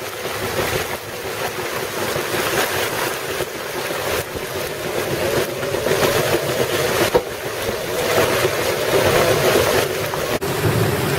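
Storm wind and rushing sea water around a sailboat, with gusts buffeting the microphone and swelling louder in the middle; a single sharp knock about seven seconds in.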